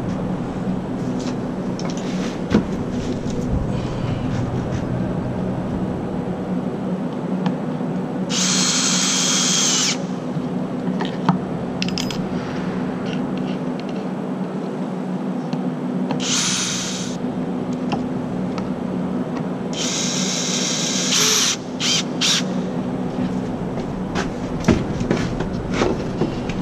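Drill-driver driving screws into pipe formwork in three short runs, about eight, sixteen and twenty seconds in, the last one stopping and starting. Scattered knocks and a steady low hum lie underneath.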